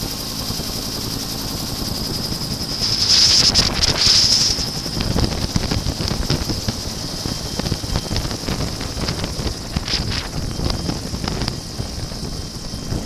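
Helicopter hovering close overhead: low rotor chop under a steady high turbine whine, with wind buffeting the microphone. About three seconds in a louder hissing rush swells for a second and a half, then eases back.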